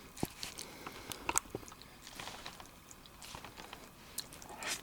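A person eating a microwaved instant noodle bowl close to the microphone: chewing the soft noodles with scattered small wet clicks and mouth noises.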